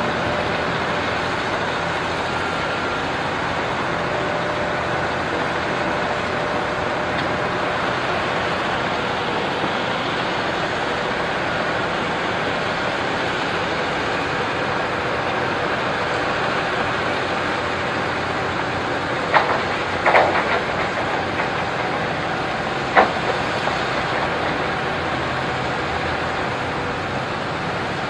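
Excavator diesel engine running steadily, with a few sharp knocks about two-thirds of the way in.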